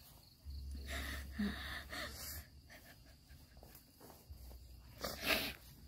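A person's heavy, gasping breaths, the loudest a little past five seconds in, over a low rumble.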